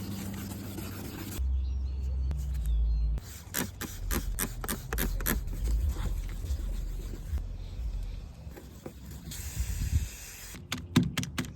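Quick cuts of spraying onto a car headlight during restoration: a rapid series of short spray squirts, then a steady spray hiss lasting about a second near the end. A low rumble runs for a couple of seconds near the start, and a few sharp clicks come at the very end.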